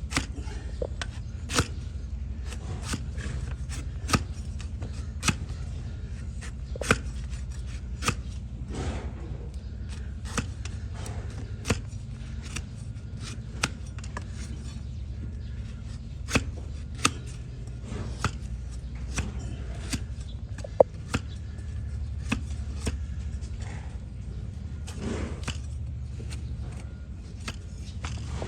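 Donkey hoof being trimmed: irregular sharp cutting clicks of a trimming tool paring through hoof horn, about one or two a second, over a steady low hum.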